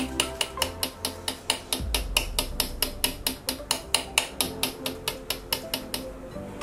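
Rapid, even tapping of a metal fork pricking rounds of kulcha dough against a silicone baking mat, about five taps a second, with a short pause near the end. Quiet background music runs underneath.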